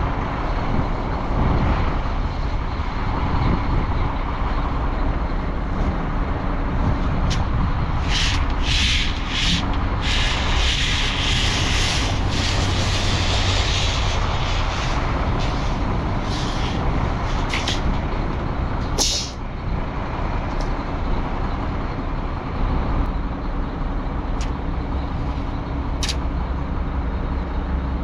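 Heavy vehicle engine running with a steady low rumble, with short hissing sounds now and then, the longest lasting a few seconds about ten seconds in.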